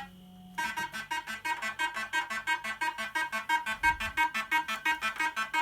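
1980s JPM Nudge Double Up fruit machine playing its electronic sound effect: a fast, even run of short beeping notes, about five a second, starting about half a second in.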